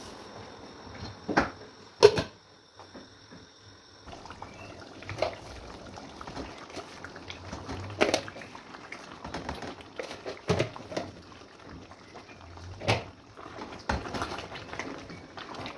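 Cooking sounds: scattered knocks and clinks of pots and utensils, the loudest two close together about one and two seconds in, over low background noise.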